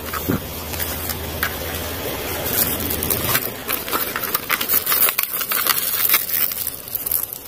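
Clear plastic bag crinkling and rustling as hands handle it, with dense, sharp crackles from about two and a half seconds in.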